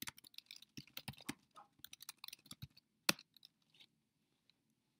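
Laptop keyboard typing: a quick run of key clicks for about three seconds, then one harder keystroke, followed by a few scattered light taps.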